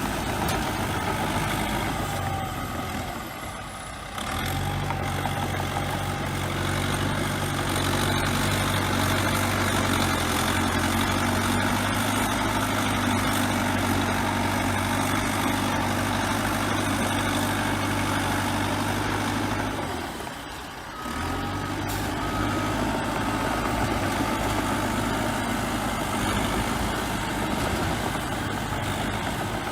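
Heavy diesel engine of a bulldozer working, running steadily. The sound drops away briefly twice, about four and about twenty-one seconds in, then returns.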